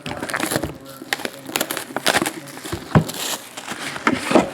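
Trading cards and their plastic holders being handled on a table: irregular clicks, taps and rustling.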